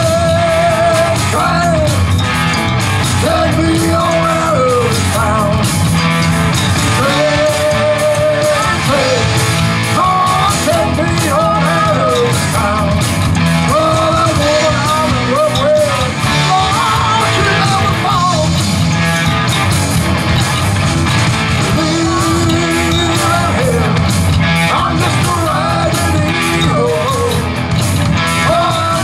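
Live rock band playing, with a lead vocal sung over electric guitars and drums.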